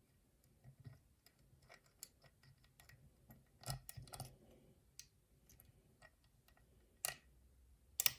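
Small metal clicks and scrapes of lock-picking tools working the wafers of a cheap five-wafer locker lock, mostly faint and irregular, with a few sharper clicks in the middle and near the end.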